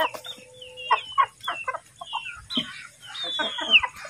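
A flock of Asil chickens clucking as they are hand-fed, with short clucks and a run of high, falling calls over the top, the loudest a little before the end.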